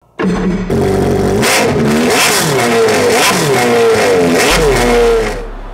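Jet ski engine revving hard, its pitch rising and falling over and over, then dropping away near the end.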